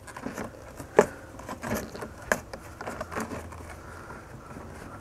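Plastic airbox top cover being worked down onto the air box housing by hand: scattered clicks, taps and light scraping, with one sharper click about a second in. It is a tight fit.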